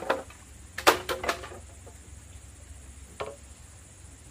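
Sharp knocks or chops, five in all: one at the start, a quick run of three about a second in (the loudest), and a last one a couple of seconds later, each with a short ring.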